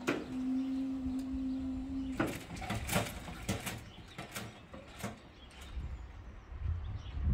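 Level crossing lifting barrier's raising mechanism giving a steady hum that cuts off about two seconds in, as the barrier reaches upright. A series of sharp clicks and knocks follows.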